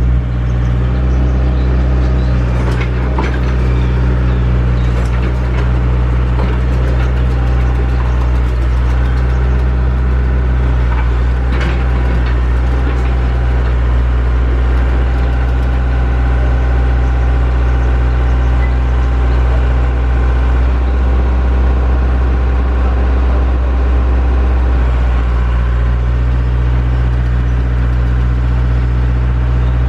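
Heavy-equipment diesel engine running steadily, with a few sharp metallic knocks, the clearest about twelve seconds in.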